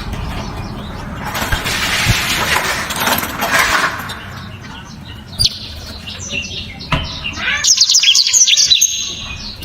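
Blackthroat (yellow-rumped seedeater) singing: scattered high chirps build to a loud, fast burst of sharp high notes a little before the end. In the first few seconds there is low rumbling noise and a hissy haze.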